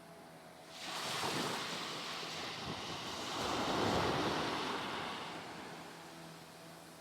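A Caribbean Sea wave breaking and washing up a sandy beach: the hiss of surf rises about a second in, swells to its loudest around four seconds, then fades away.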